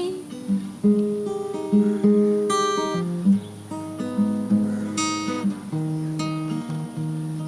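Acoustic guitar playing an instrumental passage of picked and strummed chords, each chord struck sharply and left to ring.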